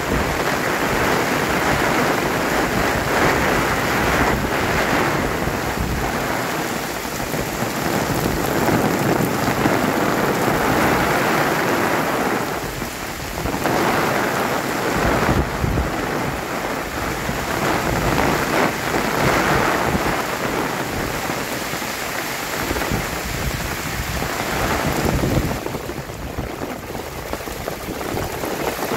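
Heavy monsoon downpour, a dense steady hiss of rain that swells and eases a few times, dropping back near the middle and again near the end.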